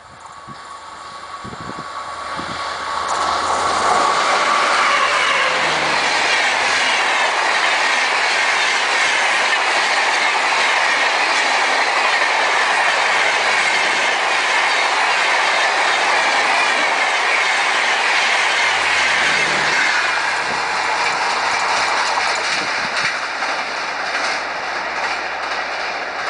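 Rajdhani Express, an electric locomotive hauling LHB coaches, passing close at speed. The noise builds over the first few seconds as the locomotive approaches, with a thin steady whine. It then holds as a loud, steady rush of wheels on rails while the coaches go by, and eases off over the last few seconds as the train recedes.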